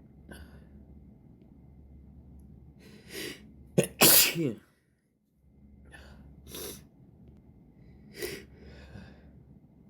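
A person sneezing once, hard and sudden, about four seconds in, after a short catching inhale. Quieter breaths follow.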